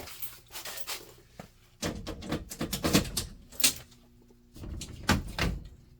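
Metal security alarm panel cabinet being opened and handled: a run of clicks and knocks in two clusters, the first about two seconds in and the second near the end.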